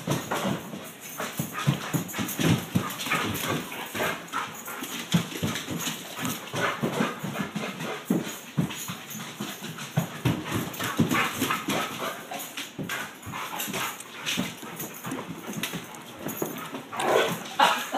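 A chocolate Labrador's claws clicking and paws scrabbling on a hardwood floor as she runs around, a quick, irregular patter of clicks and knocks.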